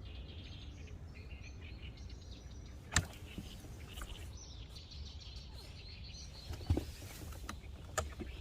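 Outdoor ambience: small birds chirping over a low steady rumble. A sharp click comes about three seconds in, a duller thump near seven seconds, and another click near the end.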